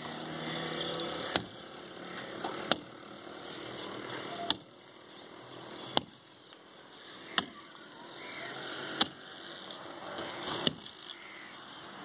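Sharp strikes of a long-handled digging tool into the packed earth of an old mud roof, about one every one and a half seconds.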